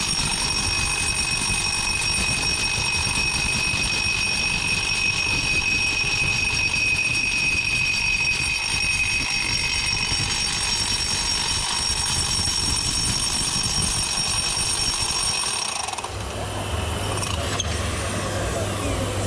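Large rotary hammer drilling into a concrete wall with a dust-extraction vacuum attached, a steady high whine over dense grinding noise. The high whine cuts off about sixteen seconds in, leaving a lower steady hum.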